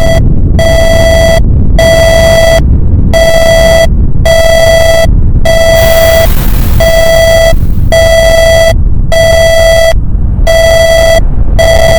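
Emergency alert alarm: a harsh, buzzing beep repeating about every second and a quarter, over a continuous loud low volcano rumble. A burst of hiss rises about halfway through.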